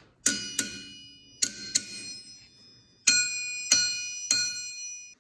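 Steel face of a broken two-piece farrier anvil tapped with a steel tool, seven strikes: two pairs of lighter taps, then three harder ones about two-thirds of a second apart, each ringing on with clear bell-like tones. It is a ring test, listening for how much ring the cracked anvil still has.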